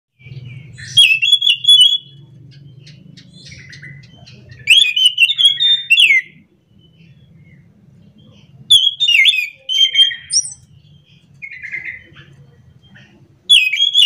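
Caged anis macan thrush singing in loud bursts of fast, varied whistled phrases, four or five phrases with short pauses between. A faint low hum runs underneath.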